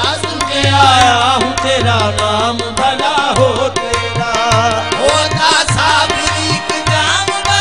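Qawwali music: tabla and drums keep a steady rhythm under a melodic line that bends in pitch.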